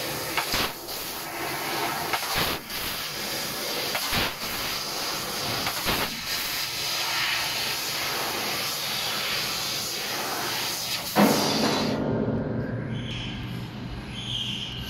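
1500 W fiber laser cutting 1.71 mm stainless steel: a loud, steady hiss of assist gas blowing from the cutting head, with a few sharp pops along the way. About eleven seconds in there is a thump and the hiss stops abruptly, leaving a low hum.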